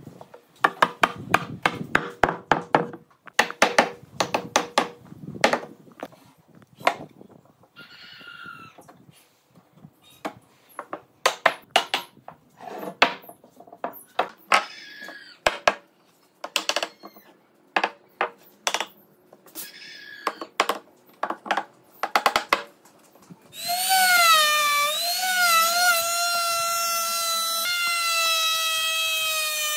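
Sharp wooden knocks in quick clusters as the frame's joints are tapped and hammered together. Late on, a handheld trim router starts up and runs with a loud, high whine whose pitch wavers as it bites into the wood, then steadies.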